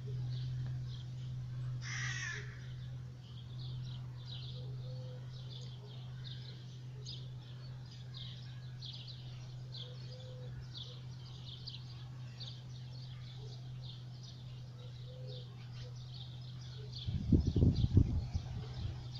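Small birds chirping continuously in a garden, with a crow cawing once, harshly, about two seconds in and a softer short call recurring every five seconds or so. A steady low hum runs underneath, and a loud low rumble comes near the end.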